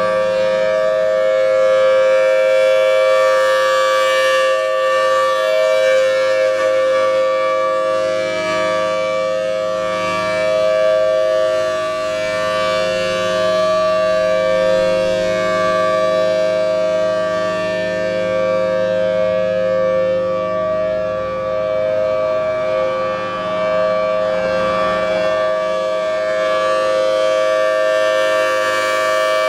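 Federal Signal Thunderbolt 1000T outdoor warning siren sounding a steady Alert tone: a loud two-note chord from its 5/6 port ratio, held at one pitch with slow, gentle swells in loudness.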